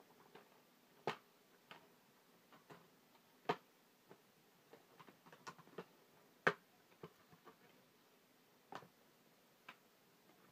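Scattered small clicks and taps at irregular intervals, the loudest about one, three and a half and six and a half seconds in: Blu-ray case and box-set packaging being handled.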